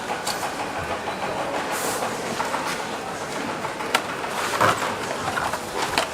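Factory-floor noise of a tablet assembly line: a steady mechanical din and hiss, with scattered sharp clicks and clatter, one louder knock a little past halfway.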